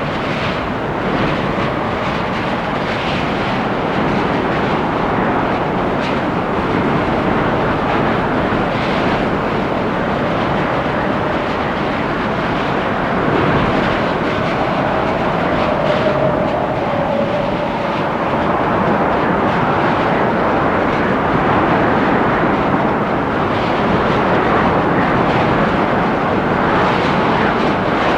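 Strong storm wind gusting through trees, a steady rushing that swells and eases, with a faint whistling tone near the middle.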